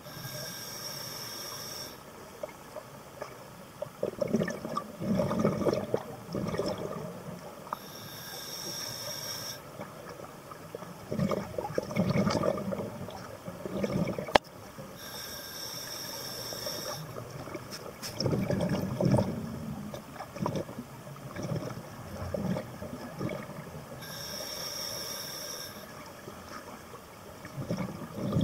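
Scuba diver breathing through a regulator underwater: a hissing inhale about two seconds long, then a louder gurgling burst of exhaled bubbles a few seconds later, four breaths in all, one about every seven seconds.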